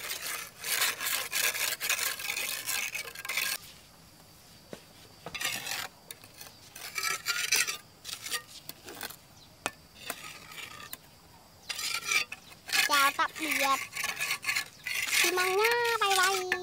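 A ladle scraping and stirring in a container in repeated bursts of a few seconds each. Near the end comes a short, high, wavering call.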